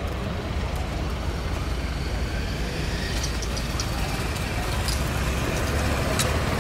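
Junkers Ju 52 trimotor's three radial engines running steadily and low-pitched as it rolls along the runway, growing slightly louder toward the end.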